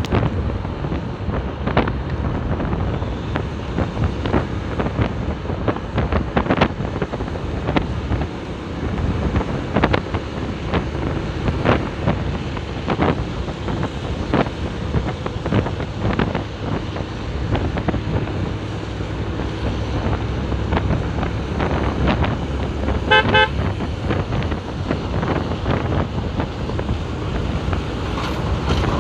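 Wind buffeting the microphone and road noise from a motorcycle ridden on a wet road, with a low steady rumble underneath. About three-quarters of the way through, a vehicle horn beeps in a quick run of short toots.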